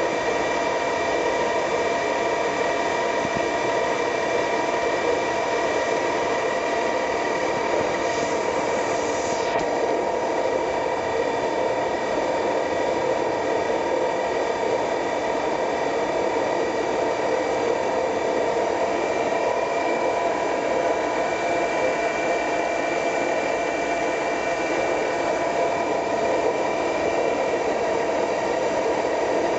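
Mori Seiki MV-1003B vertical machining center running: a steady mechanical hum and whine of several constant tones over a hiss, with a brief higher hiss about eight seconds in.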